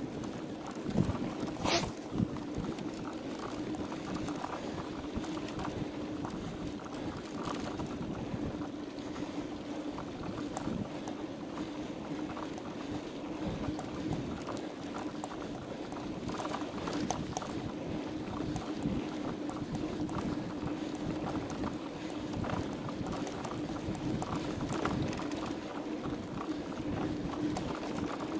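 Mountain bike rolling fast along a sandy dirt track: steady tyre and drivetrain noise with a low hum, the frame and parts rattling with sharp knocks over bumps, twice in the first couple of seconds, plus wind on the microphone.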